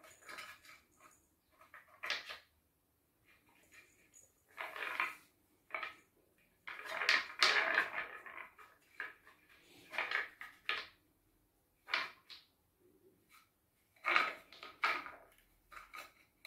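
Balls rolling and clattering round the tracks of a wooden cat track tower as kittens bat at them, in irregular bursts, some short knocks and some longer rolling runs.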